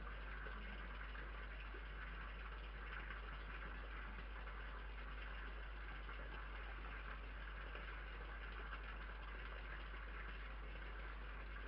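Steady low hum and hiss with no distinct events: the background noise of an outdoor night camera's microphone, with no sound from the feeding fox or the cat standing out.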